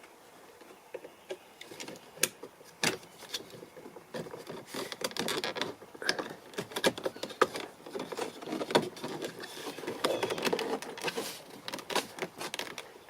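Plastic interior door handle bezel being worked into place on a car door panel: irregular clicks, taps and rubbing of plastic on plastic.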